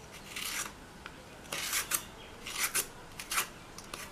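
Hand vegetable peeler scraping the skin off a raw green plantain, in short separate strokes about once a second.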